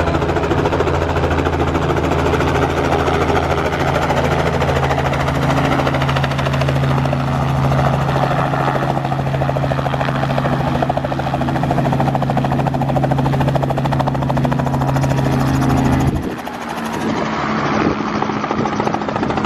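Light two-bladed helicopter running close by, its rotor and engine making a steady, loud sound. Near the end the deepest part of the sound drops away and it becomes quieter.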